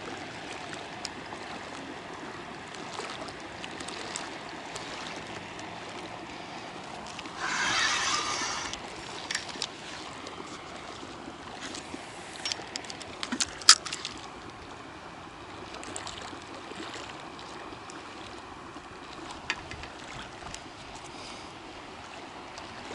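Small waves lapping steadily against a concrete bank. About a third of the way in comes a hiss lasting about a second as a feeder rod is cast and line runs off the reel, followed a few seconds later by a few sharp clicks of the reel.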